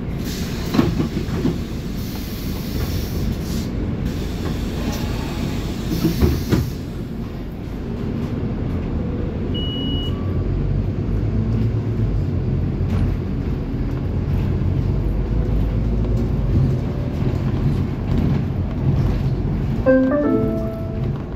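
Interior of a Scania city bus under way: steady engine and drivetrain rumble with road noise, the low hum growing from about eight seconds in. A short high beep comes about ten seconds in, and a stepped chime near the end signals the coming stop announcement.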